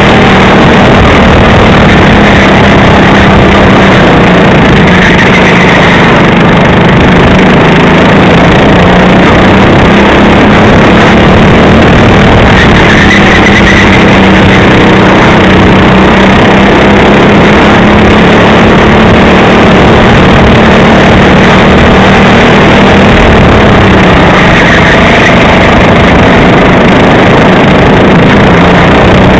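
Racing go-kart engine running hard at speed, recorded onboard at close range, its note dipping and rising slightly through the corners over a constant loud rushing noise.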